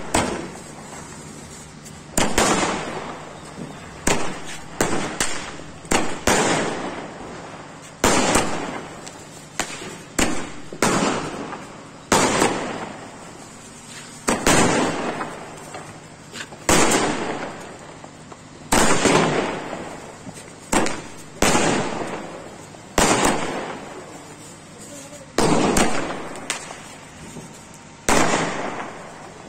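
Aerial fireworks from a ground-launched multi-shot cake, going off in a long series of loud bangs every second or two, sometimes two in quick succession, each trailing off over about a second.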